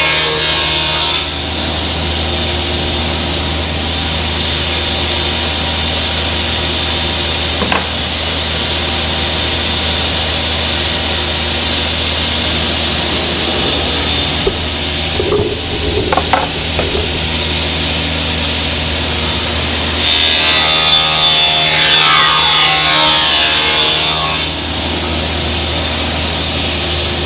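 Sliding table saw running steadily with its blade spinning, cutting through the workpiece twice: one cut ends about a second in, and another starts about twenty seconds in and lasts some four seconds. A few short knocks come around the middle.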